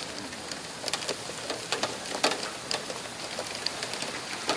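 Rain falling steadily, with single drops splattering close by at irregular moments.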